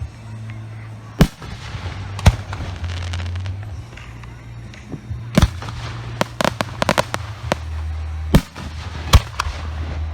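Aerial fireworks shells bursting in a professional display: sharp single booms about a second and two seconds in, another near the middle, then a rapid cluster of crackling reports, and two more booms near the end.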